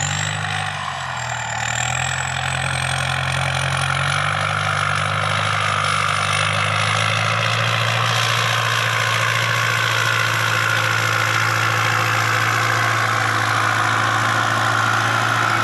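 Ford farm tractor's diesel engine running steadily as it pushes and levels soil with a front blade. A high whine climbs over the first several seconds, then holds steady.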